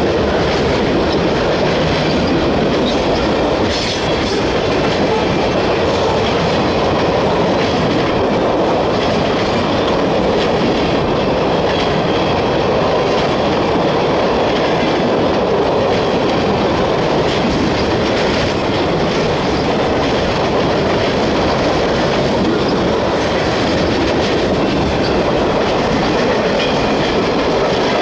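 Freight cars of a long manifest train rolling past at track speed: a loud, steady rumble of steel wheels on rail with clickety-clack over the rail joints.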